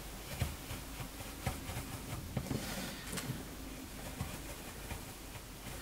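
Japanese skiving knife being drawn through thick, dense oak bark-tanned leather: faint scraping with small irregular ticks as the blade cuts along the line.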